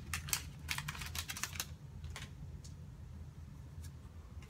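Foil Pokémon booster pack wrapper crinkling and crackling in the hands as it is torn open and the cards are pulled out, thinning to a few light clicks of cards being handled after the first second and a half.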